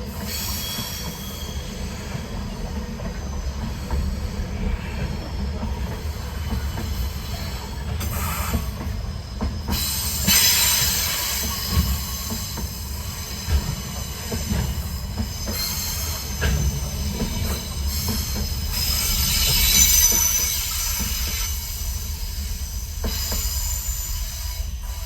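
Freight train wagons rolling past over a low rumble, their wheels squealing high in several bouts that come and go.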